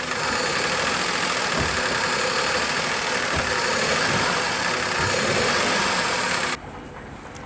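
Maruti Suzuki WagonR K-series engine running on CNG and being accelerated, with a few short low thumps as it misfires and jerks. The misfire is blamed on a faulty CNG injector. The engine sound drops off abruptly about six and a half seconds in, to a quieter run.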